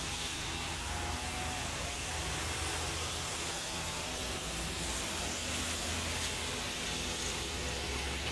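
Steady outdoor background noise: a low, fluctuating rumble under an even hiss.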